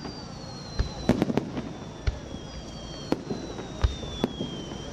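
Fireworks display: sharp bangs of aerial shells bursting at irregular intervals, about ten in a few seconds, some in quick clusters. A high thin tone glides slowly down in pitch twice.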